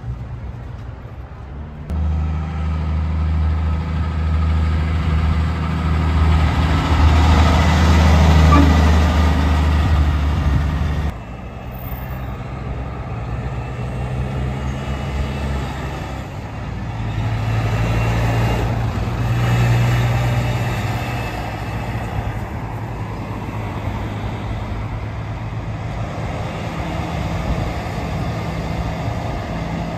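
Heavy diesel semi-trailer trucks (prime movers) driving past with their engines running. The sound changes abruptly about two and eleven seconds in, as one truck gives way to the next.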